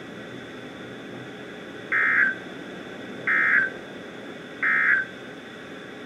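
Three short, harsh digital data bursts from a Midland NOAA weather radio, about a second and a half apart, over steady radio hiss. These are the EAS/SAME end-of-message codes that close a Severe Thunderstorm Warning broadcast.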